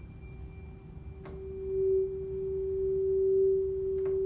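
A 384 Hz tuning fork ringing with one steady pure tone over a glass tube closed at one end. The tone swells loud about two seconds in and again near the end, as the tube length reaches the quarter-wave resonance. There are faint knocks about a second in and near the end.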